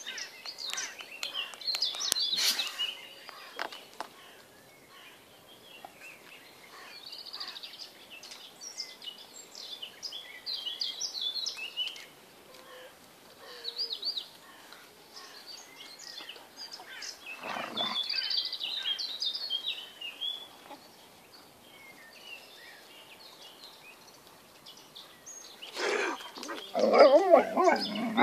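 Alaskan Malamute puppies and an adult Malamute at rough play, with scattered short, high squeaks and chirps throughout. A louder, fuller burst of noise comes about two seconds before the end.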